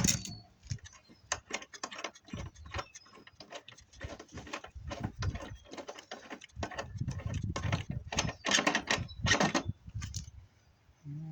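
Hand tools loosening steel parts on a dishwasher's underside: a run of irregular metal clicks, scrapes and knocks, with dull thuds of handling in between. The sound pauses briefly near the end.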